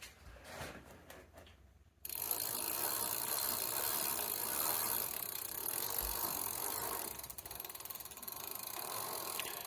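E-bike's rear freewheel ratcheting as the drivetrain is turned, a fast, steady clicking buzz that starts suddenly about two seconds in.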